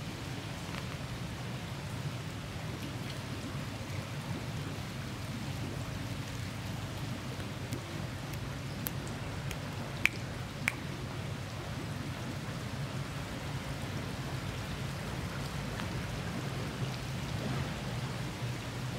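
Small fountain jets splashing steadily into a pond, a continuous rain-like patter of water. Two sharp clicks come about halfway through.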